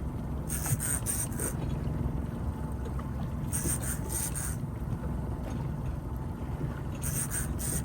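Boat engine running steadily at a low hum, with three short bursts of hiss spaced about three seconds apart.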